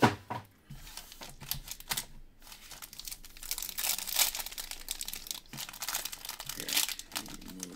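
Crinkling and tearing of the foil wrappers of Prizm football card packs as they are ripped open by hand, in irregular crackling bursts. There is a sharp tap right at the start.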